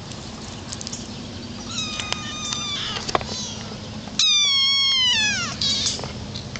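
Kittens meowing: a shorter, high meow about two seconds in, then a louder, longer meow that falls in pitch about four seconds in, with a few faint clicks between.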